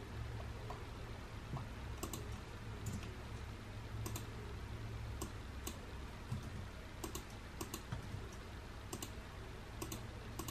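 Scattered clicks of a computer mouse and keyboard, irregular and sometimes in quick pairs, over a low steady hum.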